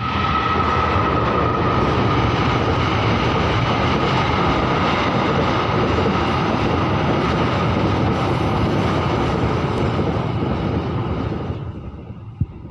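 Container freight train running past close by, a steady loud rumble of wagons on the rails. A high ringing tone sounds over the first few seconds. The noise drops off sharply about a second before the end, followed by a single knock.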